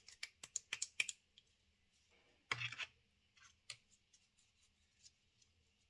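Plastic popsicle moulds clicking and scraping against their plastic stand as they are handled and one is lifted out: a quick run of clicks at the start, a short louder scrape about two and a half seconds in, then scattered faint clicks.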